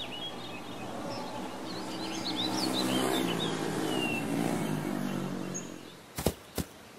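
Motorcycle engine running steadily as the bike rides up, growing louder and then fading out as it pulls up and stops, with birds chirping in the background. A few sharp knocks follow near the end.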